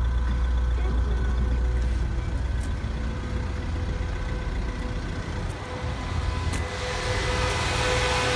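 Vauxhall Combo 1.3 CDTi four-cylinder diesel engine idling steadily, a low rumble with a faint steady whine over it. About seven seconds in, a broad whooshing rush like a fan rises over it.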